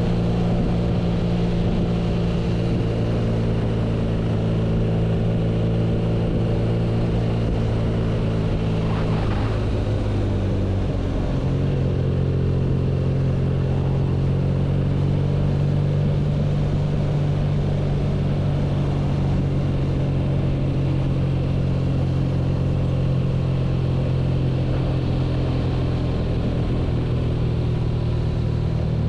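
BMW R nineT motorcycle's boxer twin engine running at steady revs. About ten seconds in, the engine note breaks and changes, then settles at a new steady pitch.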